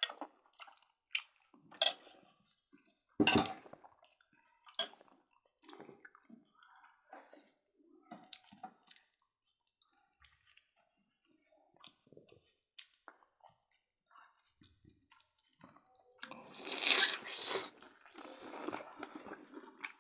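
Close-miked eating of roast pork: chewing and lip-smacking, with sharp clinks of spoons and forks on plates and a glass serving bowl. Near the end comes a louder rough crunching noise lasting a couple of seconds.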